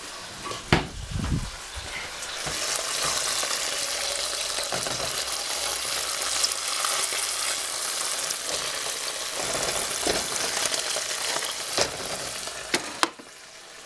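Three rashers of bacon sizzling steadily in a frying pan, the sizzle coming up about two seconds in, with a few sharp knocks of a slotted spatula moving the rashers in the pan.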